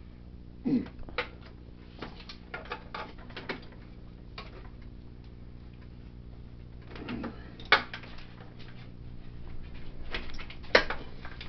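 Socket ratchet clicking in short runs while a bolt is worked loose, with scattered metal clinks, over a steady low hum.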